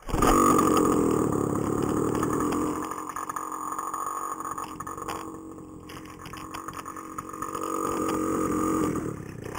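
Small 49cc CAG two-stroke engine running just after being fired up cold. It runs fast for the first few seconds, settles to a lower, uneven idle, and speeds up again near the end.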